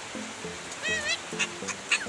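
Background music with a stepping melody, over which a blue-naped parrot gives one short call about a second in that rises and then falls in pitch.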